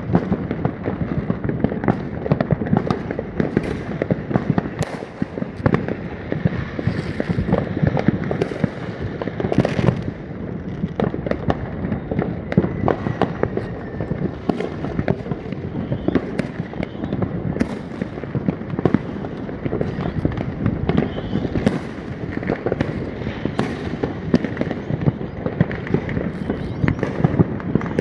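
Fireworks crackling and popping in a dense, unbroken stream of small bangs, with some louder reports standing out among them.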